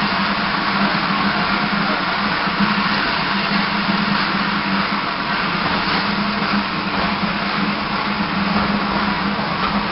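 Steam locomotive standing with steam escaping in a steady hiss, with a steady low hum underneath.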